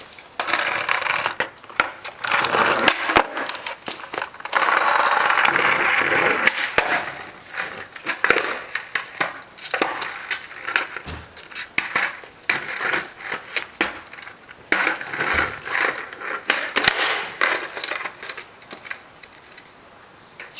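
Skateboard wheels rolling over a rough, cracked concrete sidewalk, with repeated sharp clacks of the board's deck and tail hitting the concrete. The longest steady roll comes about five seconds in.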